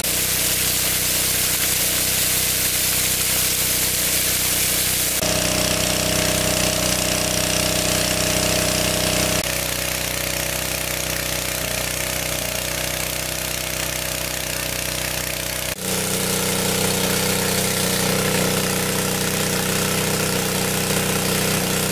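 Small petrol-engined portable water pump running steadily at full speed, pumping water out of a pond. Over the engine comes the hiss of its discharge jet spraying down onto the ground, loudest for the first five seconds or so.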